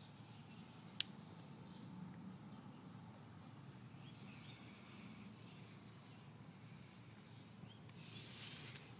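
Quiet outdoor background with a few faint high chirps, and one sharp click about a second in; a short hiss near the end.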